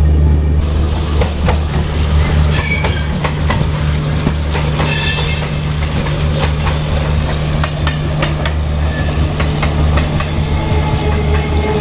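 Passenger train coach rolling on the rails, heard from inside: a steady low rumble with wheel clicks over the rail joints. There are two brief bursts of high wheel squeal, about three and five seconds in.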